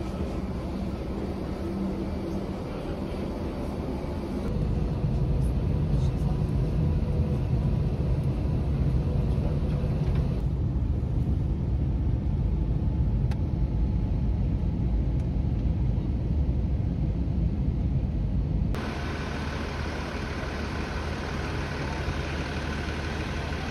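Steady low rumble of a jet airliner's cabin in flight, after a few seconds of quieter ambient hum. About nineteen seconds in it cuts suddenly to quieter outdoor road-traffic noise.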